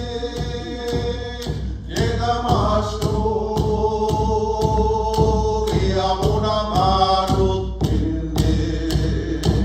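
Two men singing a Mi'kmaw song in unison to a steady hand-drum beat, about two strokes a second, with a wooden clapper stick, the traditional Mi'kmaw split-ash rattle, sounding along with the drum.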